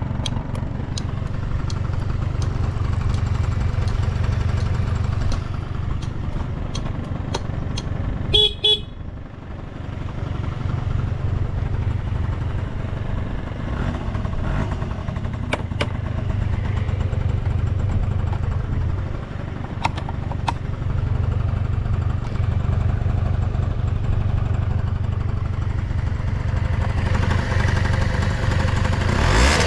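Honda Dio Fit AF27 50cc two-stroke scooter engine idling steadily, with no abnormal noise. Regular clicks come about twice a second for the first eight seconds, and the scooter's horn gives one short beep about eight seconds in.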